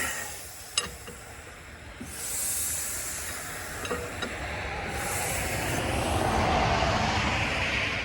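Caterpillar Sixty engine being turned over by hand with a starting bar without firing: a hiss of air that swells and fades, with a few sharp metal clinks.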